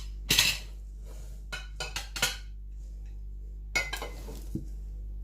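A few short clinks and knocks of kitchen utensils and a jar, about four in the first four seconds, as salted lemon quarters are packed into the jar and pressed down.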